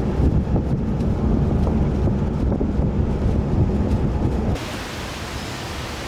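Wind buffeting the microphone as a heavy low rumble, from riding in the open bed of a moving pickup truck. About four and a half seconds in, it cuts off abruptly to a quieter, even hiss.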